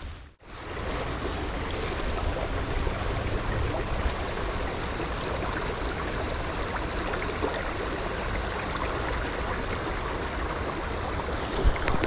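Small fast-flowing stream: a steady rush of running water. The sound drops out briefly right at the start.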